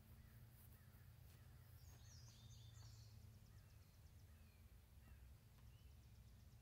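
Near silence: faint outdoor ambience with a low steady hum and small birds chirping faintly, a brief twittering about two seconds in, then short chirps about once a second.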